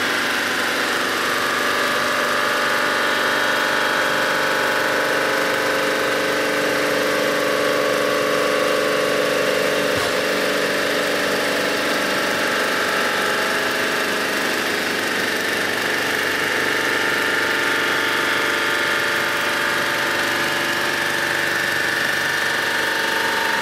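Sunnen HBS-1300 cylinder-head resurfacing machine running steadily, its cutter head taking a fine finishing cut across the deck face of an aluminium Volvo 240 cylinder head as the table feeds it through. It is a steady machine hum with several held tones.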